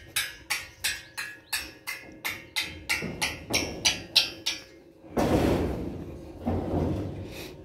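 Steady, rapid hammering on the building site, about three to four sharp ringing strikes a second. It stops, and two short bursts of rough scraping noise follow near the end.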